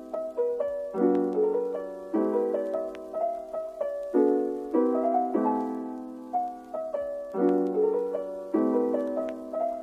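Background piano music: gentle chords and a simple melody, each note struck and then fading away.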